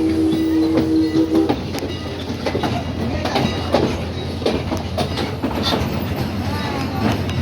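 A steam locomotive whistle sounds a chord of several tones and cuts off about a second and a half in. A passenger coach then rattles and clicks over the rail joints, with a steady low rumble underneath.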